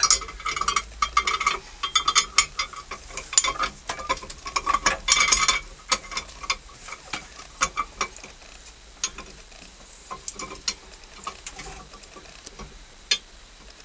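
Metal clinking and scraping as a ring is threaded through the eyes of a harmonic steering wheel puller: quick clusters of clinks for the first six seconds or so, then only occasional light ticks.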